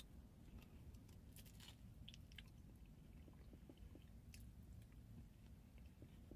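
Faint chewing of a bite of fried banana langka hand pie, its crisp crust giving a few soft crackles scattered through the chewing.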